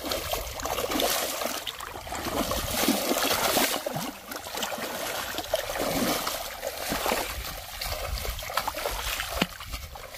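A big hooked rohu thrashing in shallow water, splashing and throwing spray without letup as it is hauled onto a muddy bank, with sharp slaps of water here and there.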